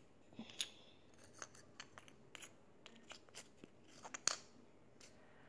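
Plastic Lego bricks clicking and tapping as they are handled and pressed together: a scatter of small separate clicks, the loudest about four seconds in.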